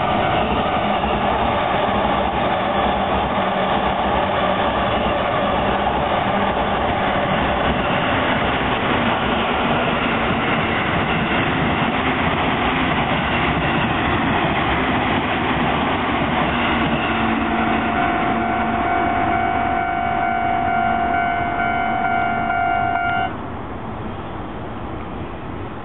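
Trains passing over a Japanese railway level crossing, a dense rushing rumble, while the crossing's electronic warning bell rings. About 23 seconds in, the bell stops and the sound suddenly drops.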